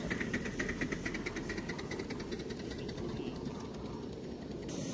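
Exhaust beats of a 5-inch gauge live-steam locomotive, about six a second, fading out over the first few seconds above a steady low rumble.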